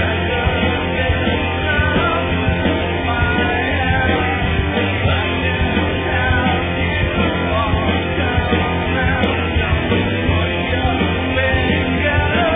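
Loud rock song played by a band, with singing.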